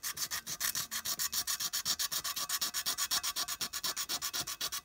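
Sandpaper rubbed rapidly back and forth by hand on the thin sheet-metal cab of a clockwork O gauge locomotive, about eight or nine strokes a second, scratching off the old paint and rust.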